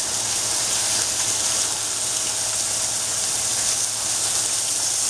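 Steaks sizzling in a hot grill pan, a steady even hiss as olive oil is poured over them, with a constant low hum beneath.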